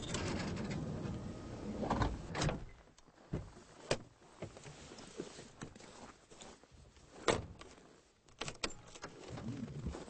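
Car engine running, then switched off about two and a half seconds in; after that, scattered clicks and knocks from the car's doors, the loudest about seven seconds in.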